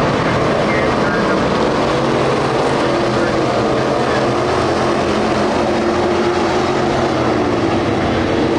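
A pack of dirt-track street stock race cars with engines running hard around the oval: a steady, loud blend of engines whose pitch wavers up and down as the cars pass.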